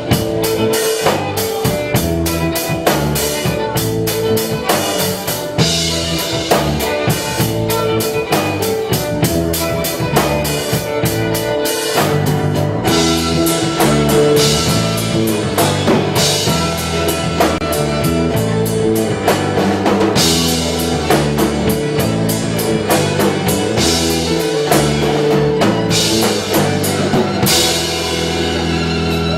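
Instrumental rock music: a band with drum kit, bass and guitar playing the song's outro with a steady beat, no vocals.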